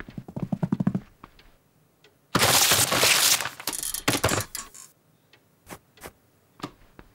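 Cartoon sound effects of a cat shredding paper on a desk: a quick run of scratchy clicks, then a loud burst of tearing paper about two and a half seconds in, followed by scattered small knocks and clatters.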